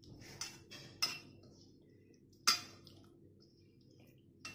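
A hand mixing chicken pieces in thick batter in an enamel bowl, with a few sharp clinks against the bowl; the loudest comes about two and a half seconds in.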